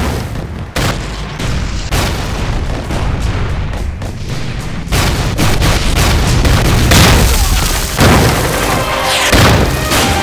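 Artillery shells exploding in a battle scene: several sudden heavy booms, with background music running under them.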